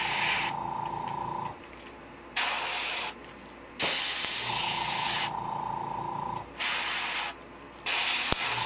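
Iwata HP-CS airbrush spraying orange paint onto a lure, hissing in five short bursts as the trigger is pulled and released, with a steady whine under the longer bursts.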